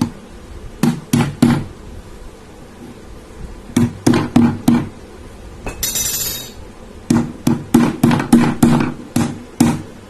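Repeated sharp taps of a tool on the small plastic-and-metal swing louver motor casing as its cap is knocked shut, in quick bursts of about three, four and then eight blows, with a brief scrape about six seconds in.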